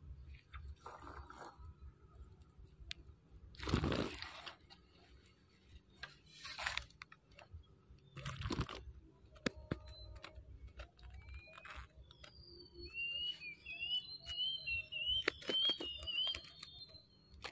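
Handling noises as a small fish is landed and the line rebaited: a few brief loud swishes and rustles with scattered clicks. Near the end comes a run of quick high chirps lasting several seconds.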